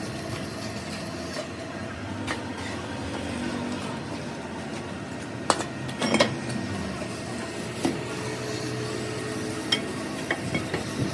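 Metal tools clinking and tapping on metal now and then, about five sharp knocks, the loudest near the middle, over a steady machine hum.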